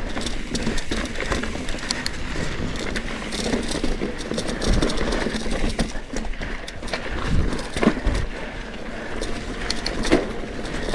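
Trek Fuel EX 9.7 full-suspension mountain bike climbing rocky singletrack: tyres crunching over rock with a steady run of knocks, clicks and rattles from the bike.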